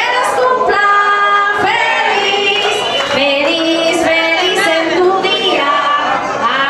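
Loud dance music: a song with a woman singing the lead over the backing track, played by the DJ.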